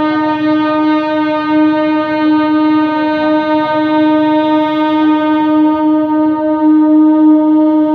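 MEMU electric multiple-unit train's horn held in one long, loud blast at a single steady pitch, over a low rumble of the approaching train.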